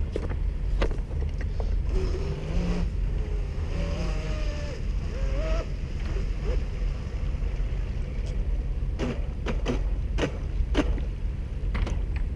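Electric RC speedboat's motor heard from a distance out on the water, its pitch rising and falling as the throttle changes, over a steady low rumble. A few sharp clicks come near the end.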